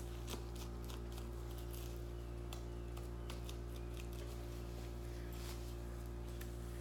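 Stiff wing and body feathers of a turkey rustling and clicking irregularly as the frozen bird is turned and handled, over a steady electrical hum.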